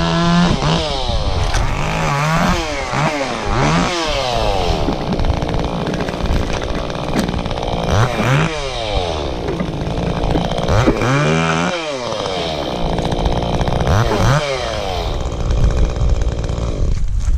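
Chainsaw revving up and down over and over while cutting limbs out of a storm-damaged tree, its pitch swooping up and falling back every one to three seconds. The sound drops away sharply near the end.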